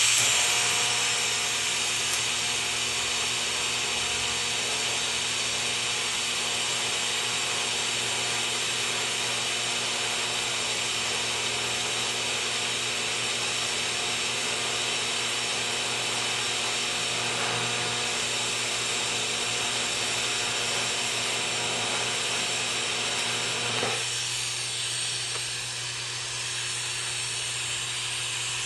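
TIG welding arc on cast iron with a high-nickel filler rod, a steady buzzing hiss with an even hum underneath. About 24 seconds in the arc stops and a quieter hiss of shielding gas carries on.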